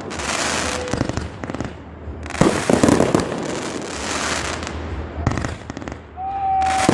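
Aerial fireworks going off: sharp bangs, each followed by a long crackling shower. A steady whistle starts near the end.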